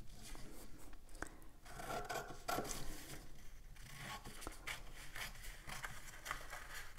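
Paper and drawing tools rubbing and scraping on a tabletop, faint and irregular, with a few light clicks.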